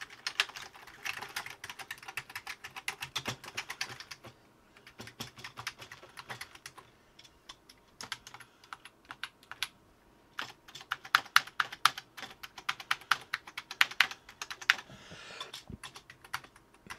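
Typing on the Commodore Plus/4's keyboard: rapid key clacks in several bursts with short pauses between, the busiest run in the second half. The keys are being tried out on the machine's first power-up, and they work.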